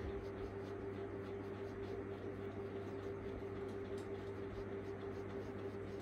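Quiet room tone with a steady low hum, and the faint soft scratching of a small paintbrush working acrylic paint into fabric stretched in an embroidery hoop.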